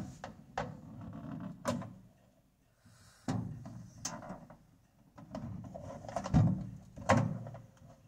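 Screwdriver prying at the plastic trim ring of a Maytag microwave door to pop its hidden clips: irregular clicks and knocks of metal on plastic, the loudest about six and seven seconds in.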